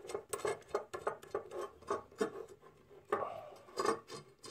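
Light irregular metallic clicks and clinks of steel nuts and a threaded rod being handled and threaded together by hand on a workbench, with a denser little rattle about three seconds in.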